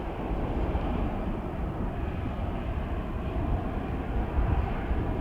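Wind buffeting the microphone: an uneven, gusty low rumble over a steady outdoor hiss.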